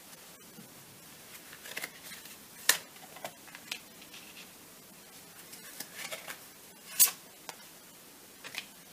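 Lenormand cards being laid out on a table: scattered light slaps and slides of cardstock, with two sharper card snaps, one about three seconds in and one about seven seconds in.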